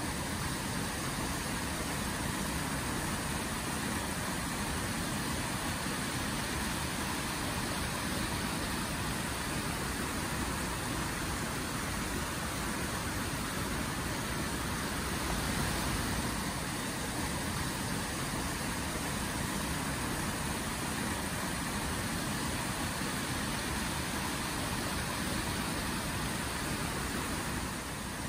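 Fast-flowing stream swollen with snowmelt, rushing over rapids and a small weir: a steady, even rush of water.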